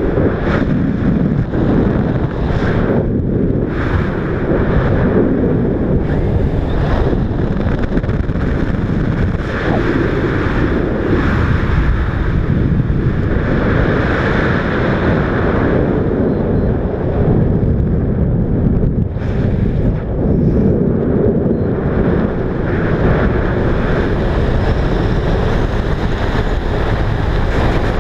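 Steady wind rushing across a skydiver's camera microphone during the descent under the parachute, a loud, continuous buffeting with no break.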